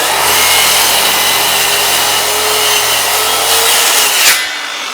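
Power circular saw cross-cutting a wooden board: it starts abruptly at full load and cuts steadily for about four seconds. Near the end the blade breaks through, and the saw runs on more quietly.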